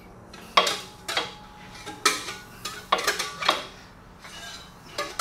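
Metal wrench clinking and clanking against the big-block Chevy engine in about half a dozen sharp, uneven strikes, as the engine is turned over by hand so the distributor gear meshes with the oil pump drive and drops into place.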